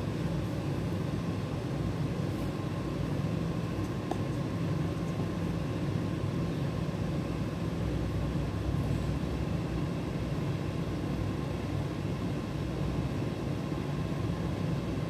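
Steady low background hum with a faint high tone held throughout, and no distinct events.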